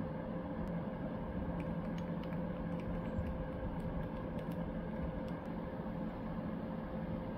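Airbrush air compressor running with a steady low hum, with a few faint light ticks as a wooden stick stirs acrylic paint in a small glass jar.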